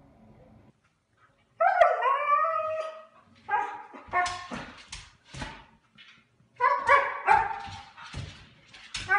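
Husky-type dog vocalizing: one long call that drops in pitch, then a run of short, sharp calls with brief gaps between them.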